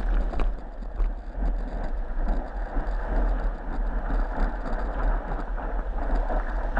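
Whitewater rushing and splashing around a surfboard as it rides a broken wave, heard through a board-mounted GoPro in its waterproof housing. The sound is a muffled, heavy low rumble with a few sharper splashes near the start.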